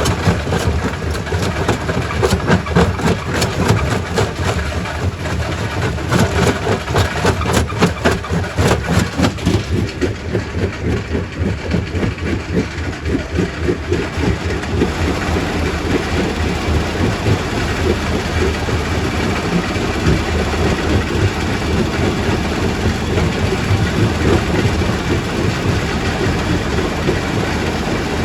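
Quarry primary rock crusher running: a rapid clatter of stone impacts over a heavy, steady machine rumble. The clatter settles into a steadier rumble about ten seconds in.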